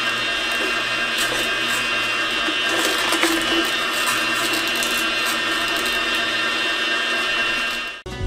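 Kuvings NSF commercial cold-press masticating slow juicer running under load as it crushes kale, a steady motor hum with a high whine. It cuts off suddenly near the end.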